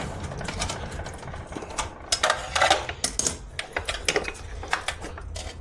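Irregular light metal clinks and knocks as the stock exhaust system of a Yamaha MT-07 is worked loose off its header studs.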